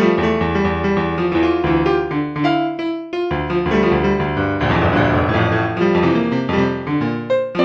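Piano music: a run of notes played at a steady, moderate pace.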